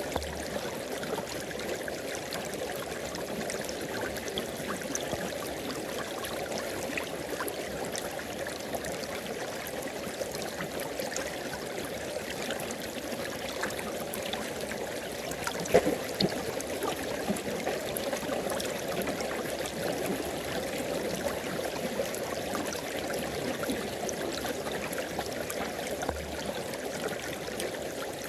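River water flowing and burbling over rocks in a steady rush, with one sharper splash about halfway through.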